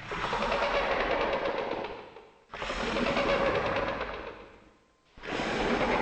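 Sound effect of rapid rattling fire in three bursts, each starting suddenly and fading away over about two seconds.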